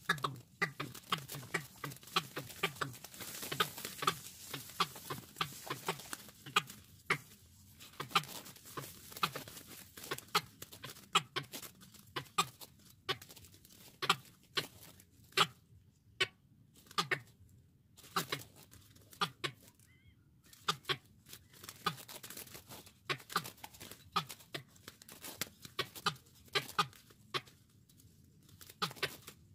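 Watercocks at a decoy cage, giving many short, deep, falling clucking notes. Sharp clicks and wing flaps come throughout as a wild watercock fights the caged decoy through the bars.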